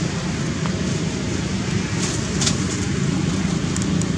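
Steady low hum and rumble of background noise, with a few faint short clicks about halfway through and near the end.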